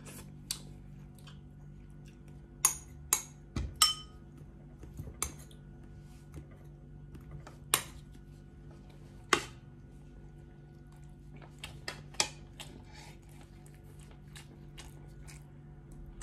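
Metal spoon and fork clinking against ceramic soup bowls and a plate in scattered sharp clicks, a dozen or so at uneven intervals. A steady low hum runs underneath.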